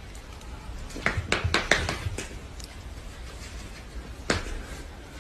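A puppy's paws tapping and scraping against a low table: a quick run of sharp clicks about a second in and one more near the end, over a low hum.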